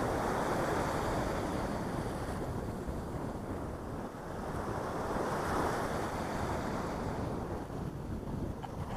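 Small sea waves breaking and washing up a sandy beach, swelling near the start and again about midway, with wind rumbling on the microphone.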